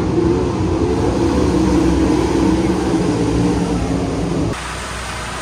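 Race car engines running on the track, their note rising and falling as the cars lap. It cuts off suddenly about four and a half seconds in, leaving a quieter hum.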